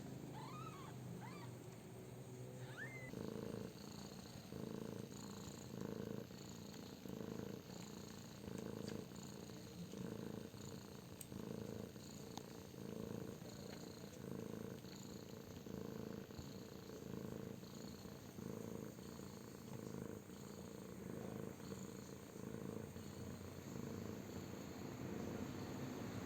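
Mother cat purring, a low pulsing sound that swells about once a second with her breathing.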